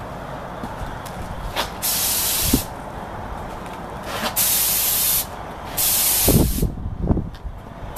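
HVLP gravity-feed spray gun hissing in three short bursts of about a second or less each as the trigger is pulled and released, spraying coating onto a metal handrail. A few low bumps come near the end.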